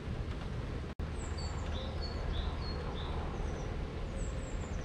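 Small birds chirping in short, falling calls several times over a steady low rumble of outdoor background noise; all sound cuts out for an instant about a second in.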